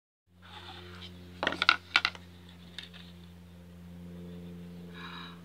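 A small cardboard jewellery box being opened, with soft scraping of the lid, and a cluster of sharp metallic clinks about one and a half to two seconds in as a stainless steel snake chain bracelet and its charm are handled. A steady low hum runs underneath.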